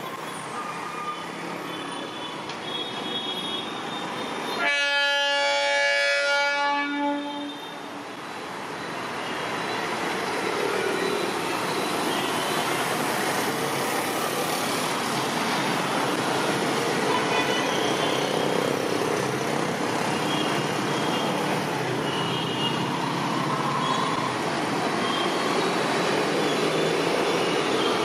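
Three-phase MEMU electric train sounds its horn once for about two and a half seconds, a little under a fifth of the way in. Then the train's running noise on the rails grows louder as it approaches and stays steady.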